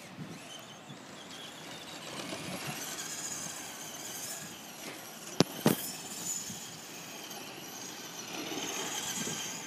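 Traxxas Slash RC truck's motor and drivetrain whining as it drives over grass, the high-pitched whine rising and falling with the throttle. Two sharp clicks come about five and a half seconds in.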